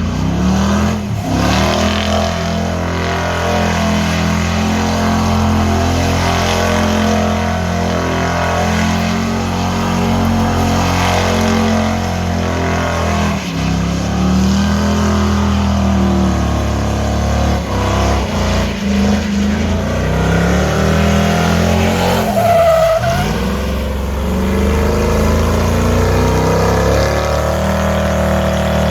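Rat rod Ford truck's engine revving hard during a burnout, rising and falling in repeated sweeps, with tyres spinning and squealing against the pavement.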